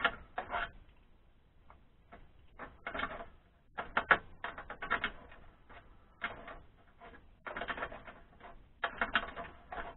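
Small metal hardware clicking and clinking as an aluminum angle mold guide is fitted to a Lee casting pot's base with a bolt, washer and wing nut: irregular taps and clatter, some in quick little clusters.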